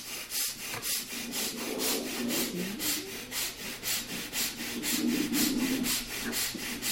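Quick, forceful breathing from the chest: short rushing breaths at a steady pace of about three a second, as in a rapid-breathing meditation exercise.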